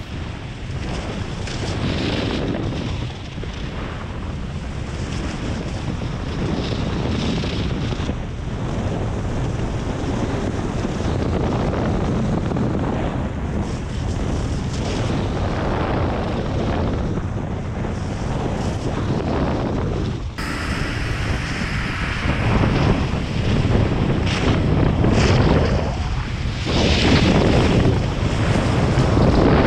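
Wind rushing over the microphone while skiing downhill, with skis hissing over packed snow. The rush swells and eases with the turns and grows louder toward the end.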